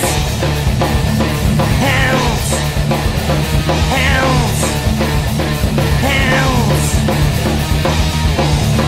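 Instrumental passage of a rock song played by electric guitar, bass and drums, with a falling figure that recurs about every two seconds.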